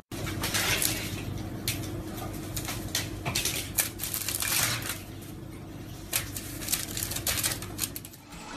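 Aluminium foil crinkling and rustling in irregular crackly bursts as a cat paws at it.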